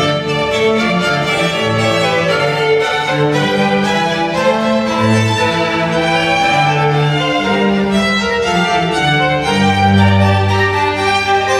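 Chamber string ensemble playing classical music: violin and cello bowing sustained notes that change step by step, with a long low note held near the end.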